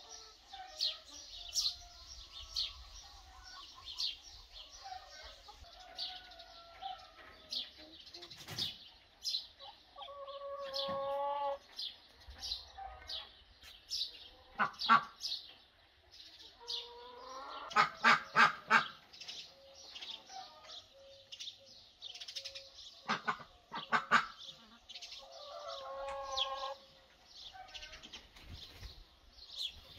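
Garden birds chirping over and over in short high notes, with a few longer, lower calls from a larger bird: about ten seconds in, again around eighteen seconds, and near the end.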